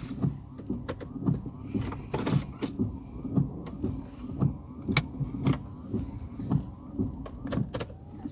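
Inside a car: a steady low rumble with sharp knocks or clicks repeating about twice a second.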